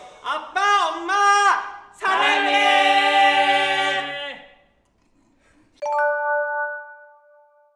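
Several men singing a short phrase together a cappella, ending on a long held note. About six seconds in, a single bright chime rings out and fades.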